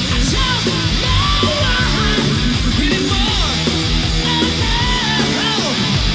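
Live heavy metal band playing an instrumental stretch: distorted electric guitar lead with many bent notes over bass and pounding drums.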